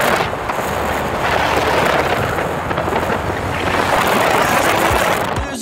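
Wind rushing and buffeting on the phone's microphone inside a moving car. It makes a loud roar that swells and eases every second or two.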